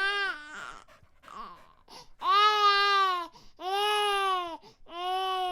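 A baby crying: a short falling cry at the very start, then, after a pause, three long wailing cries of about a second each, beginning about two seconds in.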